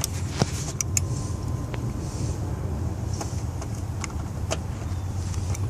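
Small scattered clicks and light plastic rustling from handling a new 7440 turn-signal bulb and its socket, over a steady low background hum.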